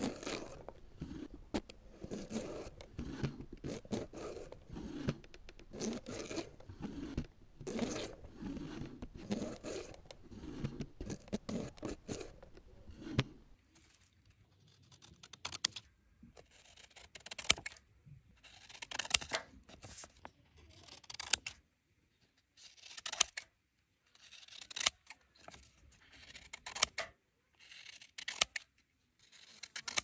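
For about the first thirteen seconds, a continuous scraping noise that swells about once a second. Then steel scissors snip through paper, one crisp cut every second or two.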